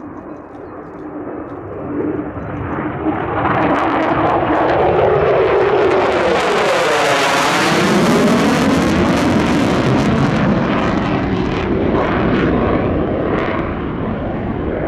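Lockheed Martin F-35A Lightning II's F135 turbofan jet engine as the fighter flies past: the noise builds over a few seconds, is loudest mid-way with a sweeping, whooshing change in tone as it passes, then fades near the end.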